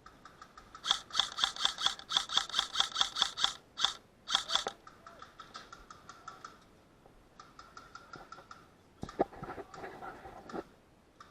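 Airsoft electric gun firing on full auto: a rapid burst of about three seconds, then a short burst, then quieter bursts and a few sharp knocks later on.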